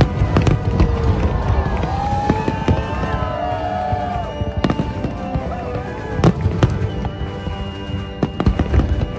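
Aerial fireworks shells bursting in an irregular string of sharp bangs and crackles, densest near the start and again near the end.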